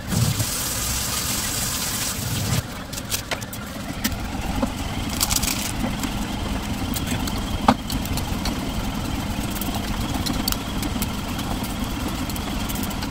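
A steady machine-like hum runs under kitchen work: a hiss like running tap water for the first couple of seconds, then scattered clicks and clinks of utensils.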